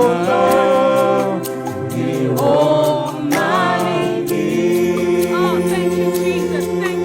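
Live worship music: voices singing slow, long held and gliding notes over sustained instrumental chords, with a light steady tick of percussion.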